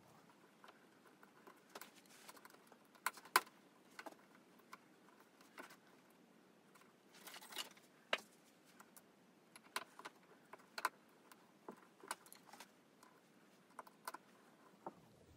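Faint, irregular clicks and clinks of small parts being handled and fitted while screwing on a laser engraver frame's rail and cable chain, with a louder pair of knocks about three seconds in.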